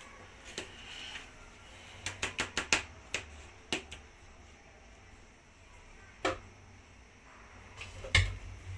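A metal spoon clinking and scraping against a plastic bowl while stirring thick cake batter, with a quick run of clinks a couple of seconds in and single clinks after. Near the end comes one louder knock with a dull thud.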